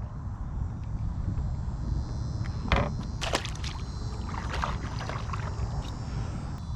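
Wind buffeting the microphone as a steady low rumble, with water sloshing against a kayak hull. A few short splashes or knocks come between about three and five seconds in.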